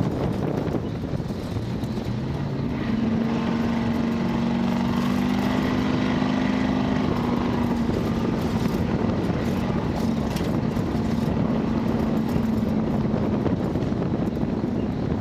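1972 Ford Bronco's engine running steadily under load as the truck drives at speed over a dirt course, with a constant drone that steadies about three seconds in. Under it run road and wind noise.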